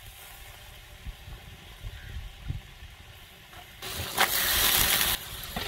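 Raw goat meat dropped into hot cooking oil with browned onion, garlic and whole spices in a large aluminium pot. About four seconds in it hits the oil and sets off a sudden loud sizzle that lasts a second or so, then eases. Before that there is only a faint low rumble.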